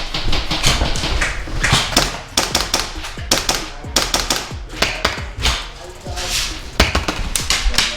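Airsoft guns firing during a firefight: sharp shots and short strings of shots at irregular intervals.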